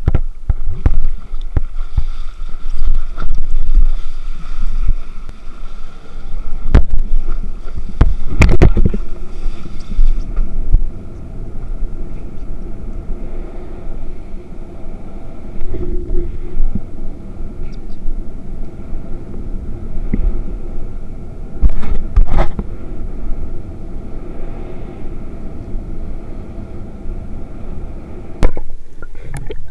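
An eFoil board under way at low speed: water rumbling and sloshing around the board, with a steady whine from its electric motor and a few sharp knocks.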